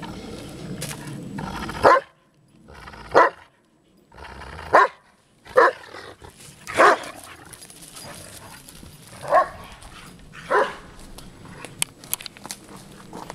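A large dog barking in play, seven short single barks spaced one to two and a half seconds apart.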